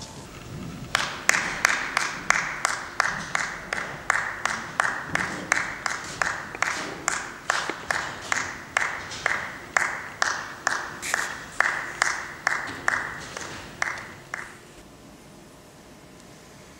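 One person clapping alone, steady separate hand claps at about three a second, in a large and almost empty theatre. The claps stop about two seconds before the end.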